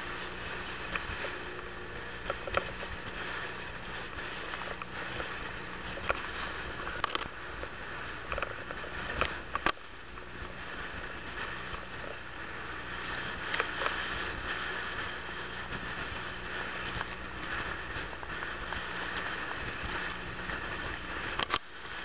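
Motor boat under way in a choppy sea: a steady engine hum under the rush of water past the hull, with a few sharp knocks now and then.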